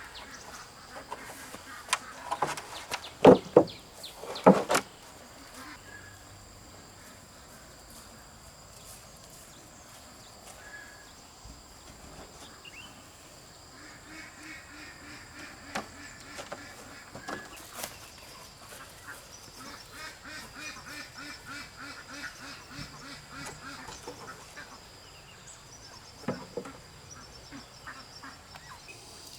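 Farm poultry calling: a few loud quack-like calls a few seconds in, then long runs of rapid repeated calls.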